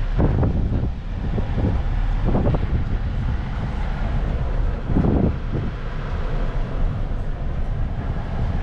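Steady low rumble of road noise from inside a moving car's cabin, with a few brief louder moments.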